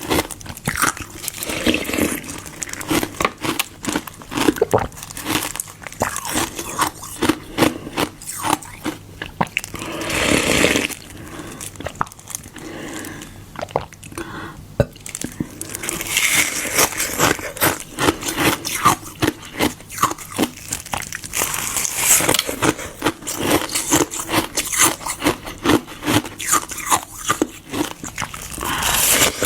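Close-miked biting and chewing of hard frozen ice, Fanta diluted with water and frozen in a glove: crisp, rapid, irregular crunching with a few short breaks.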